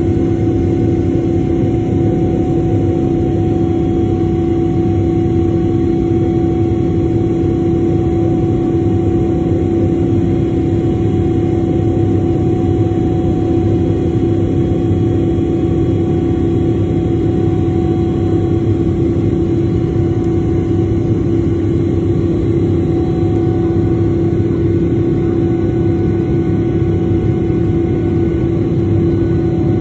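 Cabin noise of a Boeing 777-300ER climbing out after takeoff, heard at a window seat beside its GE90-115B turbofan: a steady rush of engine and air noise with a strong, even hum beneath it.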